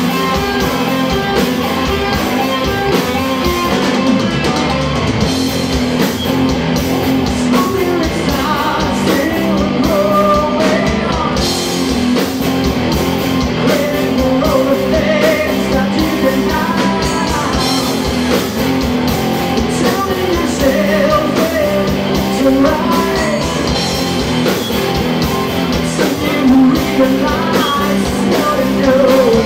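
Live rock band playing at full volume, with electric guitars and drum kit and a wavering melodic lead line over them.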